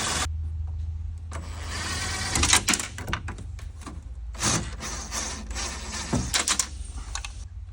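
Hands working on a van's door speaker mount: rustling and scraping with a few light knocks and clicks as the parts are handled and loosened, over a low steady hum.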